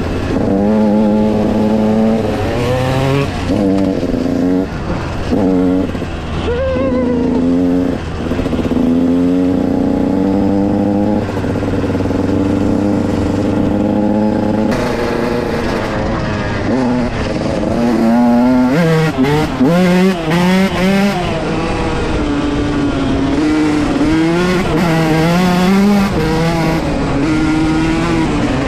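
Dirt bike engines riding off-road, revving up and dropping back over and over as the riders work the throttle and shift, with a run of quick throttle blips about two-thirds of the way through.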